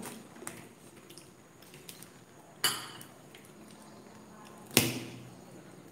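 A metal spoon clinks twice against a ceramic plate while cutting into sugar-glazed banana cue, two sharp ringing strikes about two seconds apart, the second louder.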